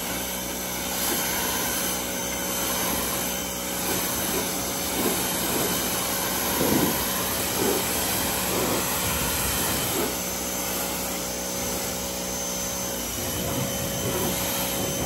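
Giraffe Tools 2200 PSI wall-mount electric pressure washer running as its jet sprays a car: a steady motor-and-pump hum under a hiss of spray. The hum shifts slightly about two-thirds of the way in.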